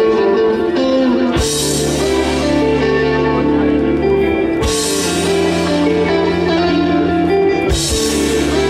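Live fuzz psychedelic rock band playing, with electric guitars holding long notes. The bass comes in with a cymbal crash about a second and a half in, and the crash cymbal hits three times, about three seconds apart.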